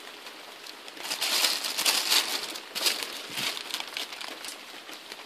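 Paper sky lantern's thin paper canopy crinkling and rustling as it is held by its wire rim while the flame inside fills it with hot air. The crinkling is strongest between about one and four and a half seconds in.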